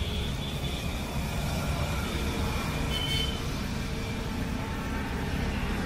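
Steady low rumble of road traffic, with a short high tone about three seconds in.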